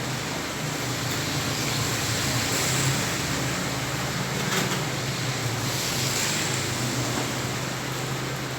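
Heavy rain falling on a flooded street, a steady dense hiss with a low hum beneath it. The rain swells a little louder about three seconds in and again about six seconds in.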